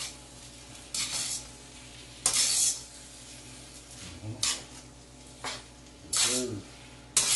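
Spatula scraping and turning fried rice in a wok, about six separate strokes at uneven intervals, over a light sizzle of the frying rice.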